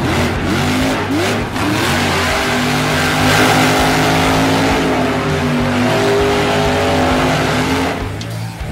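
Losi LMT electric RC monster truck's brushless motor whining as it revs, its pitch rising in short glides and then holding, with the tyres scrabbling on gravel while the truck wheelies and spins on two wheels.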